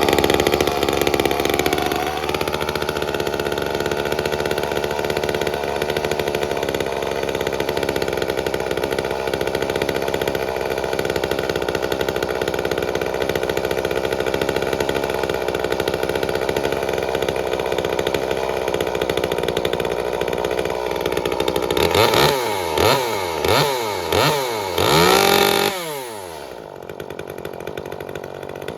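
Echo CS-355 two-stroke chainsaw, its muffler opened up, running while its carburettor is dialed in. The pitch falls and settles over the first two seconds and holds steady for a long stretch. Near the end the throttle is blipped four times, each a quick rise and fall, before the saw drops back to a lower idle.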